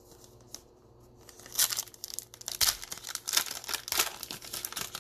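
Foil wrapper of a Panini Illusions basketball card pack being torn open by hand, crinkling and ripping in a dense run of sharp crackles that starts about a second and a half in.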